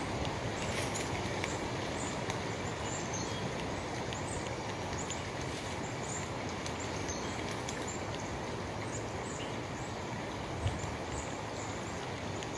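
Steady outdoor ambience: an even rushing noise with faint, high-pitched bird chirps scattered through it, and one soft thump near the end.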